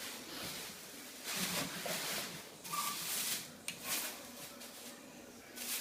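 Intermittent rustling and light handling noises in short bursts as vacuum cleaner attachments and their packaging are unpacked.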